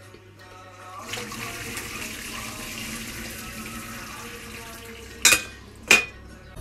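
Cooking water and boiled broccoli poured from a stainless steel saucepan into a metal colander in the sink: a steady splashing pour for about four seconds. Near the end, two sharp ringing metal clanks about half a second apart as the pan and colander knock together.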